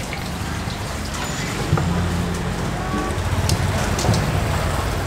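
Street traffic dominated by motor scooter engines running close by, a nearby engine's hum growing louder about two seconds in.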